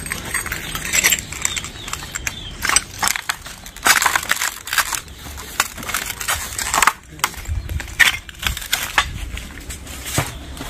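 Cardboard boxes of tiles being handled: they are slid and lifted off a scooter's footboard and set down, giving irregular scraping, rustling and knocking of cardboard and tile.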